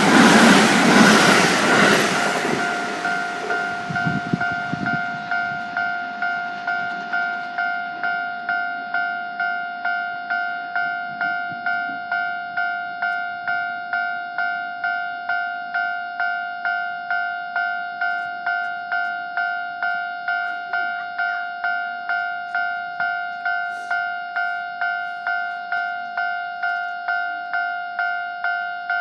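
A train passes over a Japanese railway level crossing, its wheel and running noise loud at first and fading away over the first few seconds. The crossing's warning bell keeps ringing throughout in an even, repeating ding-ding rhythm.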